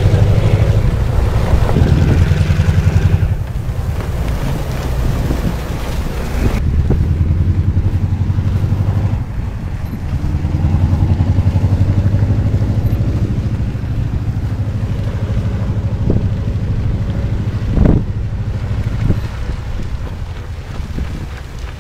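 Snowplow train pushing through deep snow drifts: a steady, loud low diesel engine rumble with wind on the microphone, changing abruptly a few seconds in as the footage cuts between trains. A sharp thump sounds near the end.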